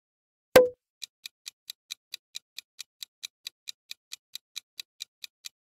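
Clock-style ticking sound effect for a quiz countdown timer, about four or five evenly spaced ticks a second, starting about a second in. Just before it comes a single sharp pop, the loudest sound.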